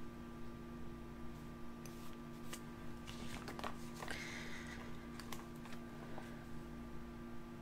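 Quiet handling of planner sticker sheets and paper: a few light taps and clicks and a brief rustle about four seconds in, over a steady faint hum.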